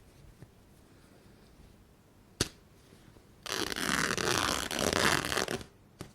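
Fabric torn by hand: a single sharp snap about two seconds in, then one long, loud rip lasting about two seconds.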